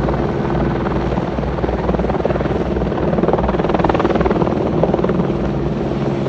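Helicopter hovering overhead, its rotor blades beating in a rapid steady chop over a constant engine hum.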